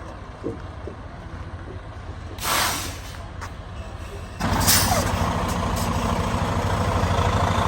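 Semi truck's diesel engine idling low, with a short hiss of air from the brakes about two and a half seconds in. Just before halfway another air hiss comes and the engine revs up and keeps running hard, growing louder, as the truck stuck in mud tries to pull free.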